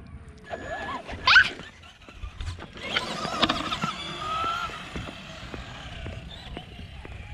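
Traxxas short-course RC truck's electric motor whining as it accelerates: a sharp rising whine about a second in, the loudest sound, then a second, longer rising whine from about three seconds in that fades as the truck drives away.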